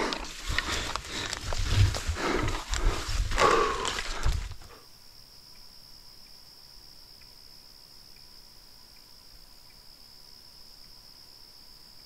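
Heavy, laboured breathing of a man carrying a loaded pack up a portage trail, with rustling and knocking from his gear and steps. About four and a half seconds in, this cuts off sharply to a quiet, steady, high insect drone from crickets.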